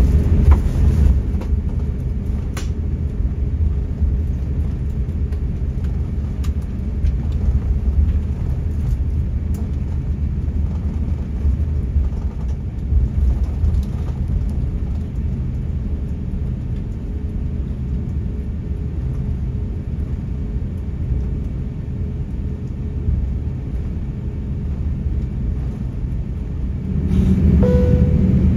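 Steady low rumble of an Airbus A350-900 cabin while taxiing, the jet engines and airframe droning with a faint steady hum above. The rumble grows louder near the end.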